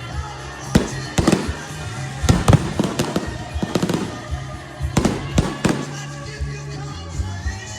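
Fireworks going off: sharp bangs and crackling clusters, thickest in the first six seconds, over background music.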